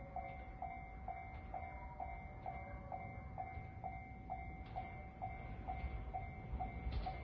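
Japanese railway level-crossing warning bell ringing steadily, about two strokes a second, over a low rumble: the crossing is active, warning of an approaching train.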